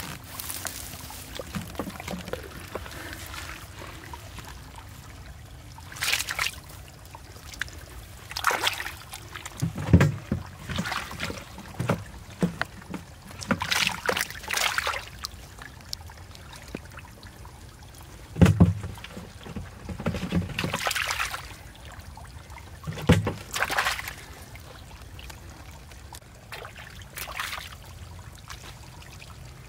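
Hands splashing in shallow muddy water while groping for fish, in irregular bursts with short pauses between.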